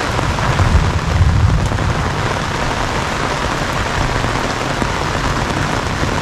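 Heavy rain pouring onto a river's surface, a steady dense hiss, with a low rumble about a second in.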